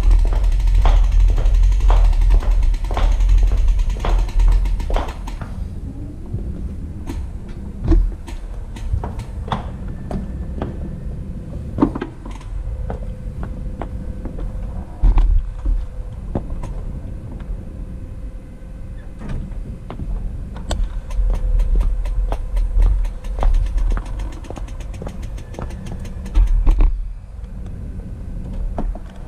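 A beat of intro music runs for the first few seconds, then gives way to the sound of a bicycle-mounted action camera on the move: low rumbling surges of wind and road noise on the microphone, scattered clicks and knocks from the bike over the pavement, and a faint steady hum.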